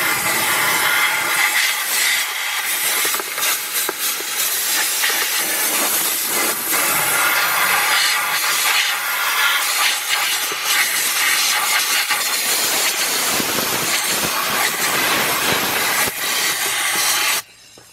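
Compressed-air blow gun hissing loudly as it blows through the heater box and its drain, clearing out the leaves and dirt that clog the drain and let condensation water build up. The hiss wavers in strength and cuts off suddenly just before the end.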